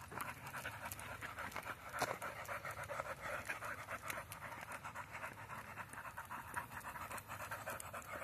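Pit bull panting rapidly and steadily while trotting on a leash, breathing hard from the exercise walk. A sharp click about two seconds in.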